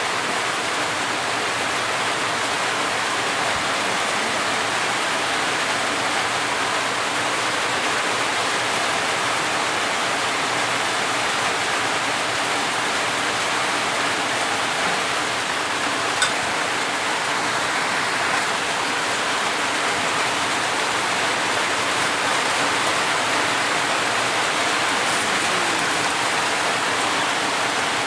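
Steady sizzling of ingredients frying in a pan, with a single click about sixteen seconds in.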